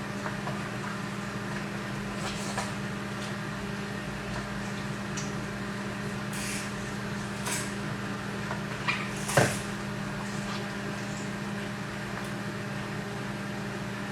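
Grated eggplant being pressed in a plastic strainer to squeeze out its water: a few soft plastic clicks and rustles, the loudest about nine seconds in, over a steady low hum.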